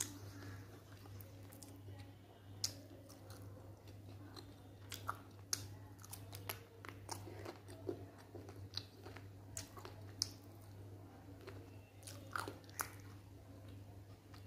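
Eating rice and chicken curry by hand: moist chewing and fingers mixing rice on a glass plate, with scattered sharp clicks and smacks, over a steady low hum.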